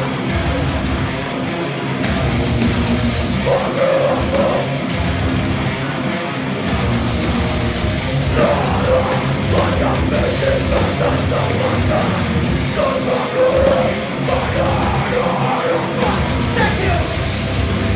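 Heavy metal band playing live through a concert PA: distorted electric guitars and pounding drums, with the vocalist's harsh, shouted vocals over them.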